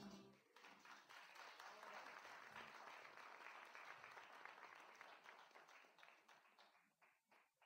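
Theatre audience applauding as the dance music cuts off, the applause thinning to a few scattered claps near the end.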